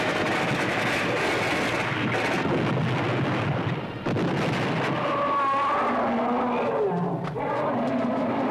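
Action-scene sound effects from an old film soundtrack: a dense rushing noise of explosion and commotion that breaks off briefly about four seconds in, then wavering high-pitched cries that rise and fall over the noise.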